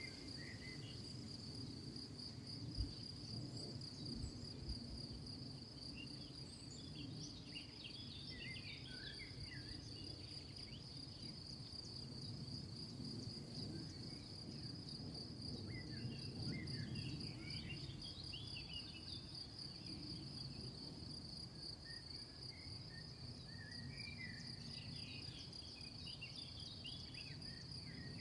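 Crickets trilling in a steady high-pitched chorus, with short bird chirps coming and going and a low rumble underneath. A single knock sounds about three seconds in.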